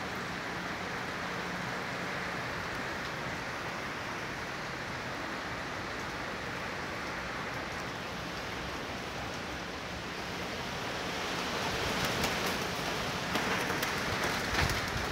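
Storm wind and heavy rain making a steady rushing noise, which swells in a stronger gust near the end with scattered sharp clicks and rattles.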